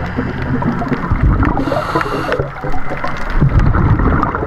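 Underwater ambience picked up by a camera below the surface: a loud, steady low rumble of moving water with scattered crackling clicks, and a brief hiss about two seconds in.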